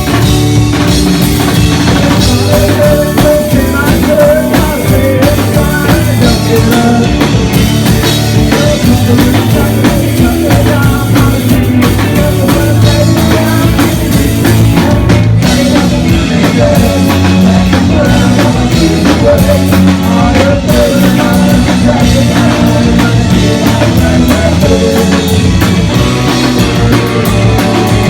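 Rock band playing live, loud and steady: drum kit, electric guitars and bass, recorded from the audience.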